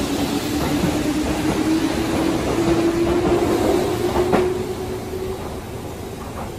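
Keihan 8000-series electric train pulling out and passing close by, its traction motors whining and rising slowly in pitch as it gathers speed, over the rumble of wheels on rail. A single sharp clack comes about four seconds in, and the sound then falls away as the train leaves.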